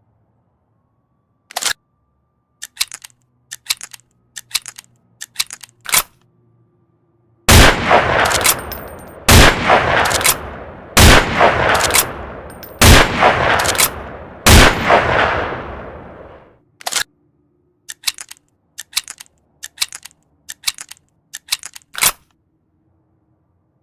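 Springfield M1903A4 bolt-action .30-06 rifle: a series of short metallic clicks and rattles, then five loud shots roughly two seconds apart, each ringing out in a long echoing tail, followed by more clicks of the action.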